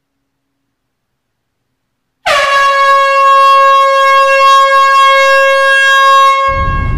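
Silence for about two seconds, then a single loud, steady horn note held for about four and a half seconds, dipping slightly in pitch as it starts and then holding one pitch until it cuts off.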